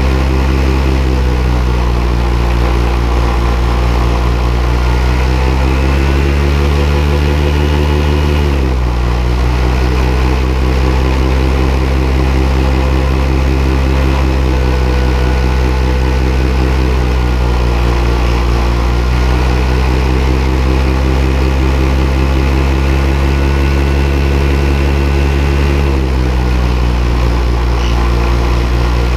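Paramotor engine and propeller running behind the pilot in flight, with wind rush on the microphone. The engine note rises a couple of seconds in, drops back around eight seconds, rises again around fourteen seconds and eases off again near twenty-six seconds as the throttle is opened and closed.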